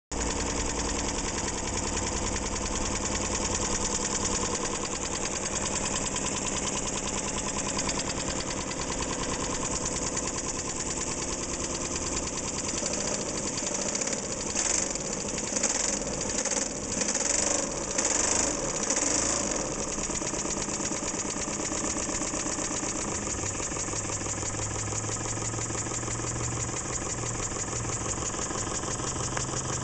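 Miniature twin-cylinder oscillating (wobbler) model steam engine, an Elmer Verburg H-Twin, running steadily with a fast, even mechanical patter. From about halfway to two-thirds through, several louder, uneven surges of hiss come and go, then the engine settles back to its steady run.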